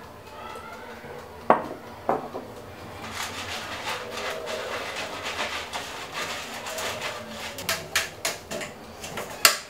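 Silicone pastry brush rubbing oil around the inside of a metal cake tin, a dense scratchy scraping with light clinks against the metal. Two sharp knocks come about a second and a half in, and a run of sharp metallic taps near the end as the tin is lifted and handled.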